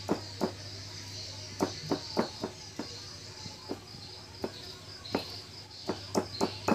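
Stone pestle pounding shallots and garlic in a stone mortar: a run of short knocks at an uneven pace, slowing in the middle and quickening again near the end.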